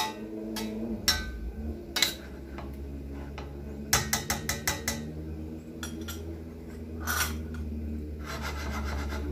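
A metal spoon clinking and scraping against a stainless steel pan of simmering beef-and-mushroom gravy as it is stirred: single clinks about a second apart, a quick run of about seven taps around four seconds in, and a short rasping scrape near the end. A steady low hum runs underneath.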